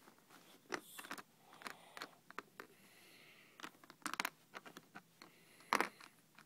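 Plastic Lego bricks clicking and scraping as the pieces of a small Lego puzzle box are handled, a scatter of irregular clicks with the loudest about a second before the end.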